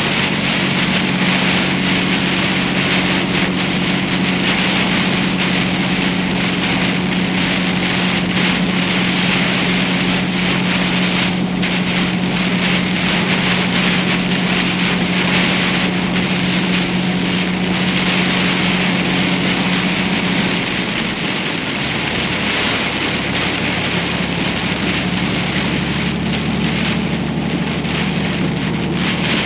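Heavy rain and wind pounding on a moving vehicle, a dense steady hiss, over the steady drone of its engine. About two-thirds of the way through, the engine note changes and its hum drops lower.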